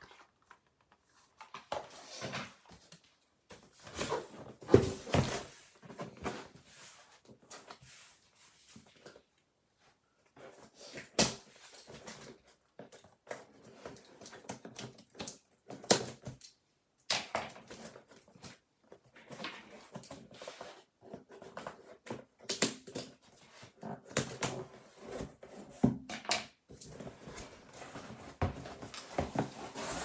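Cardboard packaging being handled on a wooden desk: the tape on a cardboard shipping box is slit open and the flaps are pulled back, with scattered sharp taps and knocks among rustling.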